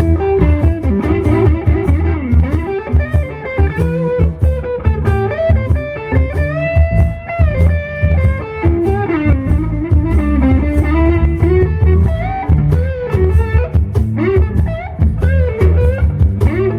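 Live blues band in an instrumental break: an electric guitar solo with bent, wavering notes over bass guitar and drums.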